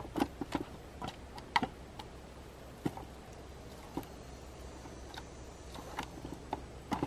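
Plastic seasoning shaker shaken over raw pork in a disposable aluminum foil pan, with the hand working the meat against the foil: irregular light clicks and ticks, several close together at the start, then spaced out.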